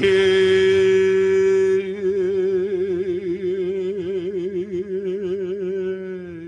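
A Hawaiian chanter holds one long vowel at the end of a chanted line. The note stays steady for about two seconds, then moves into a slow, wide, even vibrato, the 'i'i of Hawaiian chant, and dies away near the end.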